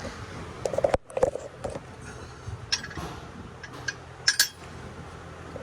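Scattered metallic clinks and knocks of hand tools against engine parts while a fuel injector is worked out by hand, the sharpest pair about four seconds in.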